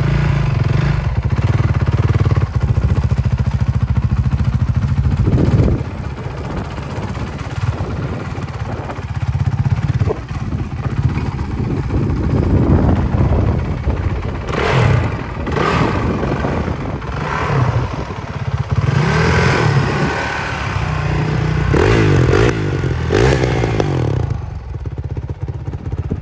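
2017 Honda CRF450R's single-cylinder four-stroke engine running, steady for the first few seconds, then settling lower about six seconds in. The throttle is blipped several times in short revs that rise and fall, and the engine eases off near the end.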